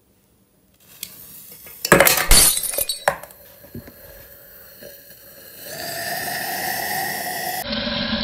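Lit colour-smoke firework dropped into an empty aluminium drink can, clinking and clattering against the metal about two and three seconds in. From about six seconds the smoke charge catches and hisses steadily as it spews smoke and sparks from the can.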